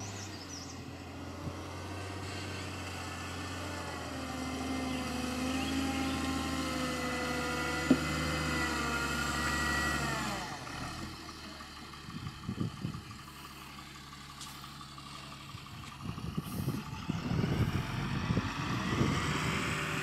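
Heavy diesel engines of a Tata dump truck and a JCB backhoe loader running. The engine note rises steadily, then drops away sharply about halfway through. The quieter second half has scattered knocks and rattles.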